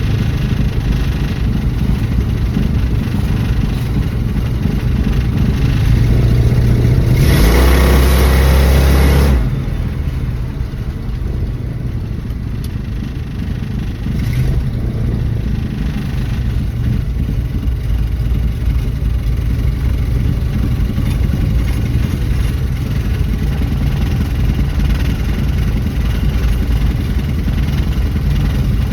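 1974 Dodge Dart's engine running steadily, rising in a rev about seven seconds in that cuts back sharply a couple of seconds later, then running on evenly.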